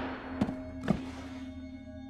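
The echo of a gunshot dies away, then two short sharp clicks come about half a second apart, over a sustained droning music bed.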